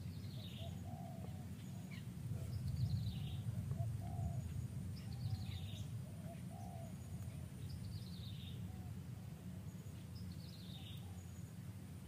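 A forest bird repeating a short, falling call about every two and a half seconds, five times, with fainter, lower calls in between, over a steady low rumble.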